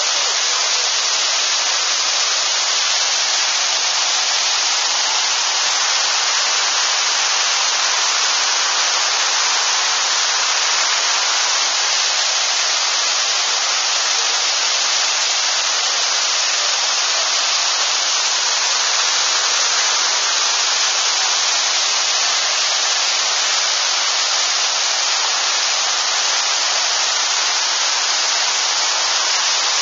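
Pagsanjan Falls pouring into its plunge pool: a steady, even hiss of falling water with little bass.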